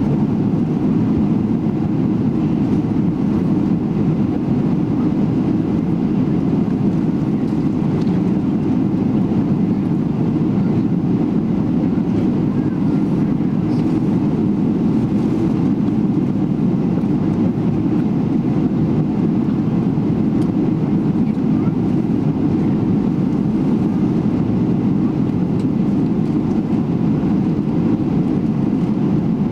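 Steady low rumble inside the cabin of a Boeing 777-300ER on the ground after landing, with faint passenger voices under it.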